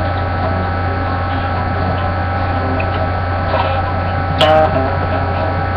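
Steady low electrical hum with several faint steady higher tones over it. A single short knock comes about four and a half seconds in.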